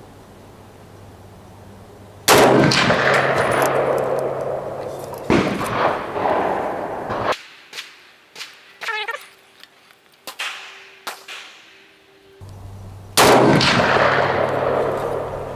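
An AK-47 rifle firing 7.62x39 rounds: three single shots, about two seconds in, about five seconds in and near the end, each dying away slowly. Small clicks and knocks fall in the quieter gap between the second and third shots.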